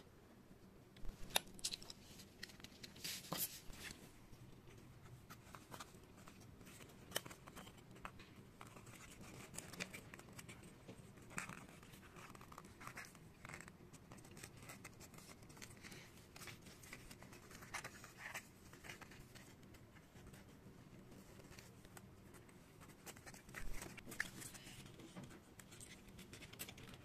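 Foam-board 3D puzzle pieces handled and pushed into their slots: faint, irregular scraping, clicking and rustling of the printed foam board, with a few louder scrapes in the first few seconds.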